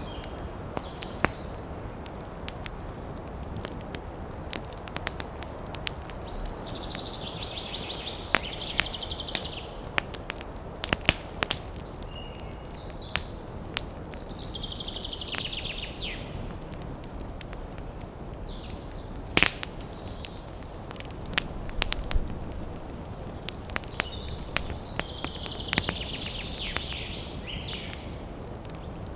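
Wood campfire crackling and popping, with irregular sharp snaps over a low steady hiss. Three times a high rattling animal call sounds over it, each lasting a second or two.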